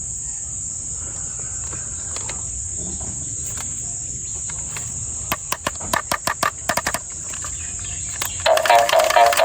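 Clicks and taps of plastic toys and packaging being handled, in a quick irregular run starting about five seconds in, over a steady high-pitched whine. Music starts again near the end.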